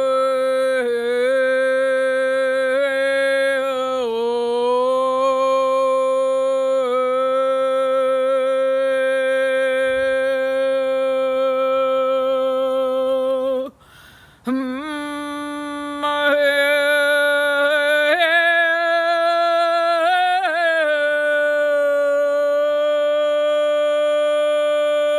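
A woman's voice toning long, wordless held notes for sound healing. She pauses briefly for a breath about halfway through, then comes back on a slightly higher note that wavers before settling.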